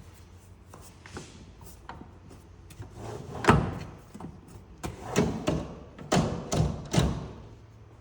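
Cooler door being worked onto its tracks: a series of knocks and thuds, the loudest about three and a half seconds in, then several more between five and seven seconds.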